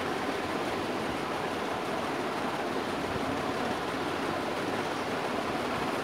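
Crompton Greaves Trigger 1200 mm ceiling fan running, a steady whoosh of moving air with no change in pitch or level.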